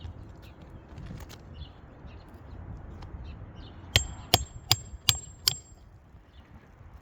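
Hammer driving a roofing nail into shingles: five quick ringing metal strikes, about three a second, following a few seconds of faint scuffing and clicking.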